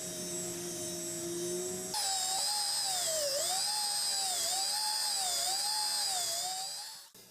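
Small high-speed power tool whining. The pitch holds steady for about two seconds, then wavers up and down in regular dips before dying away near the end.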